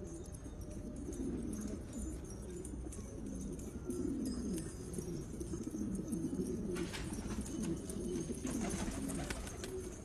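Several domestic pigeons cooing continuously, their low falling coos overlapping one another. A few short sharp clicks and scuffs come in the last few seconds.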